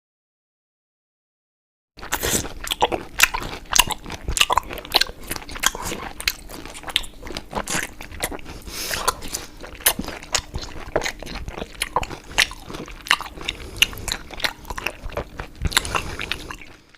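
Close-miked eating sound effect: crunchy food being bitten and chewed, with dense crackling crunches starting about two seconds in and stopping just before the end.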